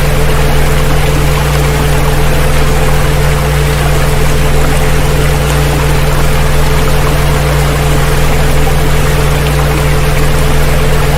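Several steady, unchanging tones held together, from a deep hum up to a mid-pitched pair, over a constant rush of water: a sound-healing 'frequency' track mixed with a water recording.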